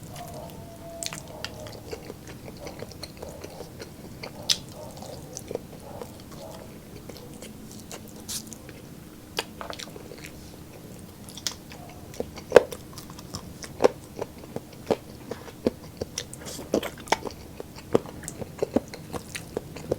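Close-up chewing and biting of lechon roast meat, with sharp irregular clicks and crunches that come more often in the second half.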